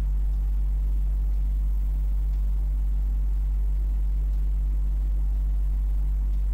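Steady low rumble of a moving passenger train, heard from an open coach door, with no distinct wheel clicks and no change in level.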